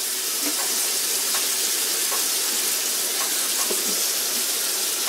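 Bacon and chicken pieces sizzling steadily in a frying pan: an even, continuous high hiss.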